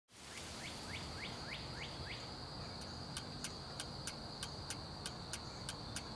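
An outdoor evening ambience fades in: a steady high-pitched insect drone with a quick, regular ticking, and a bird giving a run of about six short falling chirps over the first two seconds, over a faint low rumble.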